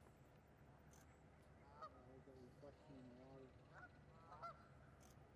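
Geese honking faintly, several short calls, over a low steady hum.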